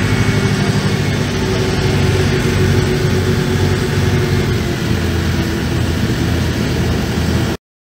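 A river ferry's engine running steadily while the boat is underway, a low drone under a broad hiss; the sound cuts off abruptly near the end.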